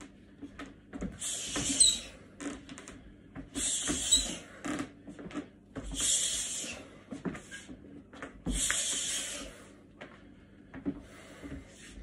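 Forceful hissing exhalations through the mouth timed with martial-arts strikes, four strong breaths each about a second long, spaced two to three seconds apart, with lighter ones near the end. Between them come soft knocks and shuffles of boots on the floor.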